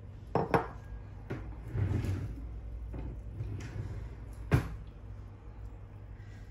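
Kitchen clatter: a few sharp knocks and clunks, the loudest about four and a half seconds in, over a steady low hum.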